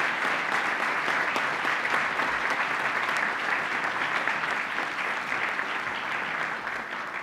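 A large audience applauding, the many claps blending into a steady patter that begins to die away near the end.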